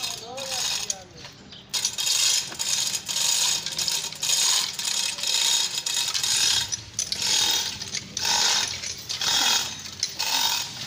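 Manual chain hoist being hand-pulled to lift an engine: the chain rattles and the hoist's ratchet clicks in repeated pulls, about two a second.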